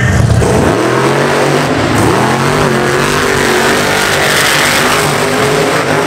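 Monster truck engine at full throttle, revving hard, its pitch rising and falling with the throttle as the truck races down the track.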